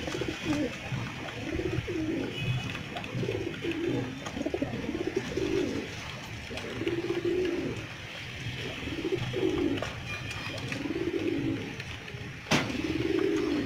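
A flock of domestic pigeons cooing over and over, overlapping calls throughout. A single sharp knock near the end.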